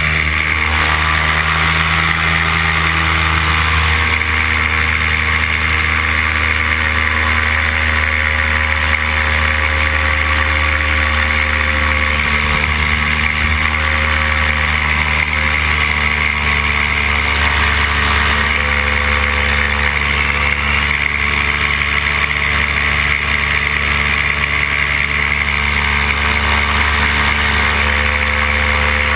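Paramotor engine and propeller running steadily in flight, a constant drone with no change in throttle.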